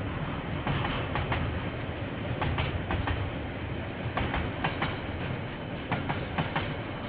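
Train passing, its wagons' wheels clicking over the rail joints, often in quick pairs, over a steady rumble, heard through a security camera's microphone.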